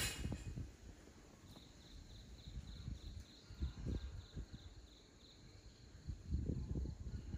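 An insect chirping in an even, rapid pulse, about four chirps a second, starting about one and a half seconds in and stopping a little past the middle. Low, irregular rumbling bumps sit underneath, with a sharp click at the very start.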